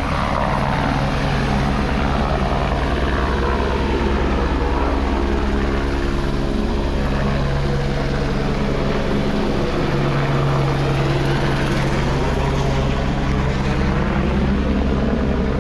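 Helicopter running, a loud, steady drone of turbine and rotor with a fast low chop from the blades.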